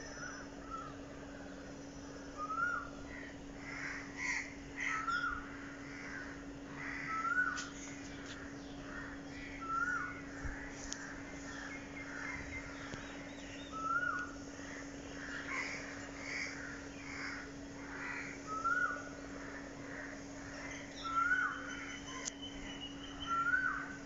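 Crows cawing on and off, with another bird repeating a short rising call every two seconds or so, over a steady low hum.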